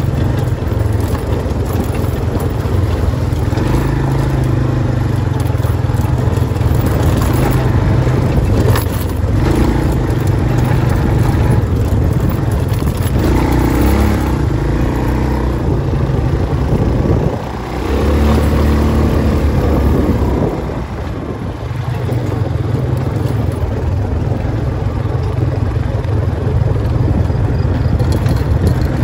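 Off-road vehicle driving along a rough dirt and gravel track: steady engine hum mixed with tyre noise on the gravel, dipping briefly twice past the middle.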